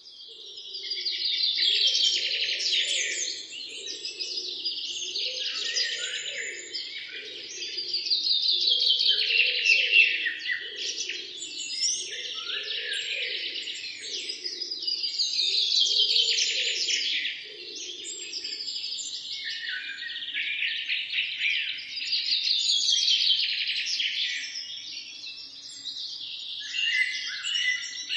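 A flock of small birds chirping densely together, the chorus swelling and easing in waves about every seven seconds. A fainter, lower pulsing sound runs underneath and stops about two-thirds of the way through.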